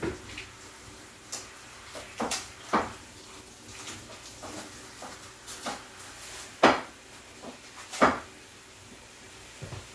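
Kitchen prep clatter: scattered knocks and clinks of utensils, dishes and containers on a countertop, with two louder knocks about two-thirds of the way through.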